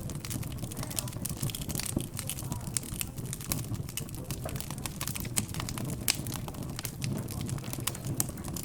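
Wood fire crackling, with frequent small sharp pops and snaps, over a low hum of background chatter.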